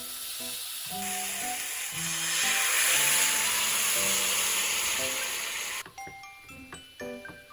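Ground meat frying in a pan on a gas hob, with a steady sizzle that jumps to a much louder, hissier sizzle about a second in as a little water goes into the hot pan to keep the meat from burning; the sizzle cuts off suddenly near the end. Soft background music with plucked notes plays throughout.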